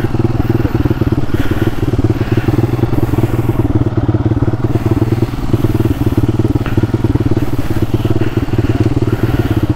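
Single-cylinder engine of a modified Hero Impulse trail bike with a big-bore kit, running at a steady idle with fast, even exhaust pulses.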